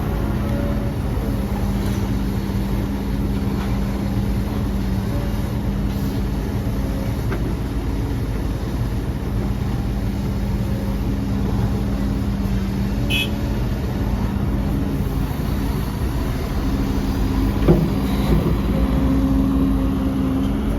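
Diesel engine of heavy earthmoving machinery running steadily with a low rumble and a constant hum. A couple of sharp knocks come near the end.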